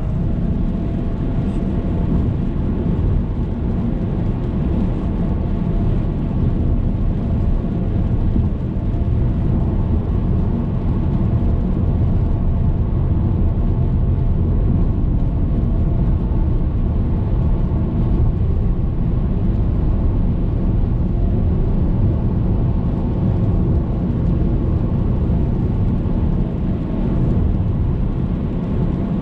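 Hyundai Veloster Turbo driving at steady speed on a highway: a continuous low rumble of engine and road noise that does not change.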